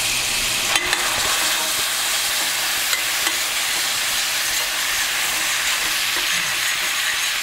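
Minced garlic sizzling steadily in hot melted butter in a stainless steel pan while a metal spoon stirs it, the spoon clicking and scraping against the pan a few times.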